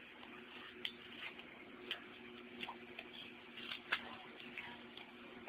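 Scattered light plastic clicks and taps, about a dozen at irregular intervals, from a small flathead screwdriver prying at a laptop's underside and its cover pieces being handled, over a faint steady hum.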